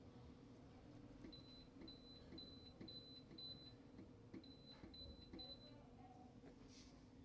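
Faint electronic beeps from a washing machine's control panel, about two a second: six in a row, a short pause, then four more.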